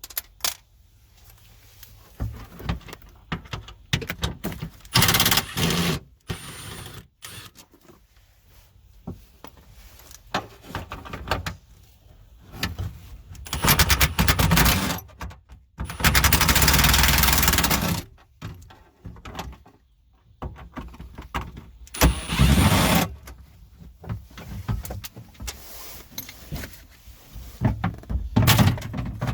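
Irregular clunks, rattles and scrapes of a car's quarter-window regulator assembly and glass being worked and pulled loose from the rear quarter panel, with a longer, louder noisy stretch of about two seconds past the middle.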